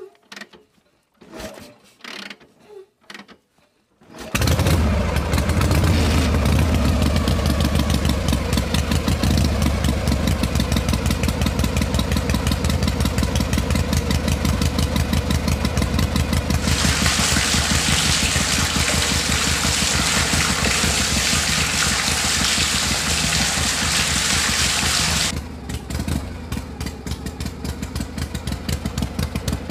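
Miniature model diesel engine of a DIY flour-mill setup, just hand-cranked, starts about four seconds in and runs steadily with a fast chug, driving the mill by its belt. From about 17 to 25 seconds a loud hissing rush joins the engine sound.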